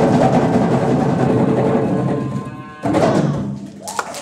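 A drumming ensemble plays loudly. The playing dies away about two seconds in, then one more loud stroke rings out and fades.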